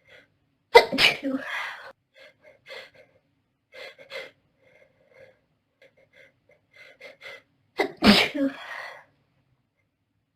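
A young woman sneezing twice, about seven seconds apart, hay fever sneezes. Each sneeze is sudden and loud and trails off over about a second, with short faint sounds between them.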